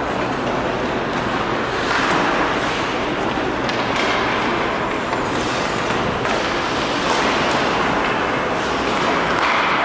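Steady noise from an ice hockey game in an arena, with skaters on the ice and a few faint sharp clicks scattered through it.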